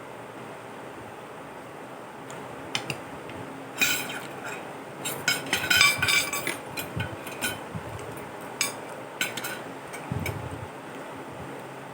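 Cutlery clinking and scraping against a plate during a meal, with scattered sharp clicks and a busier run of clinks about four to six and a half seconds in.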